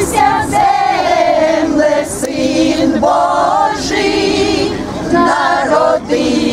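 A small group of women singing a Ukrainian Christmas carol together in unison, unaccompanied, in long held notes with short breaks between phrases.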